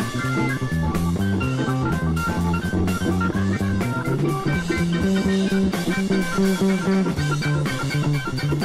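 Rock music from a 1971 recording: guitar and bass guitar playing a busy, shifting line over a drum kit keeping a steady beat.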